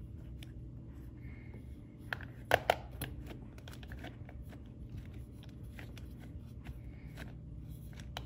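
Light clicks and ticks of drawing supplies being handled, with two sharper clicks close together about two and a half seconds in, over a low steady hum.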